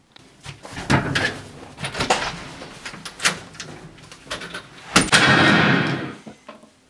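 An interior door being worked: a run of clicks and knocks, then a loud bang about five seconds in, followed by a rushing noise that fades within a second and a half.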